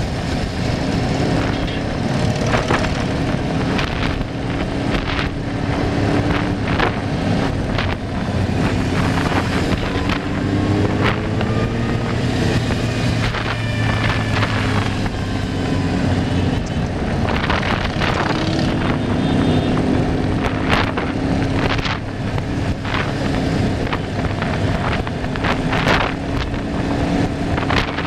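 Vehicle noise on the move, with wind buffeting the microphone: a steady motor hum with whines that rise and fall in pitch, and scattered short knocks and clicks.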